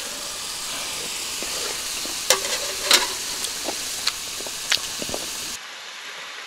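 Beef sirloin steak sizzling in a small square pan on a portable gas stove over a low flame, with a few sharp clicks and clinks of chopsticks against the pan and dishes, the loudest two about a second apart. Near the end the sizzle drops abruptly to a quieter hiss.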